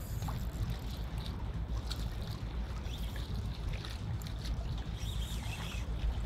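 Wind buffeting the microphone as a steady, fluttering low rumble, with shallow water lapping around a wading angler.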